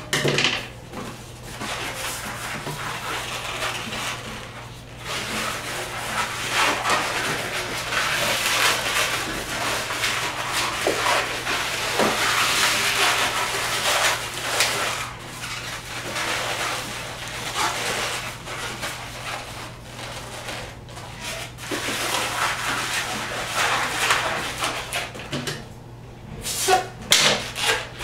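Latex modelling balloons rubbing against each other and the hands as they are twisted and joined, in uneven swells, with a few sharp clicks near the start and near the end.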